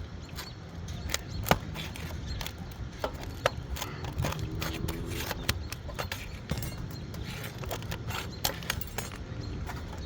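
Irregular knocks, taps and scrapes of hand work on an asphalt-shingle roof, several loud sharp strikes among them, over a steady low rumble.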